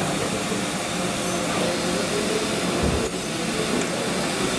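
Steady rushing background noise of a factory workroom, like ventilation or running machinery, with a brief low bump about three seconds in.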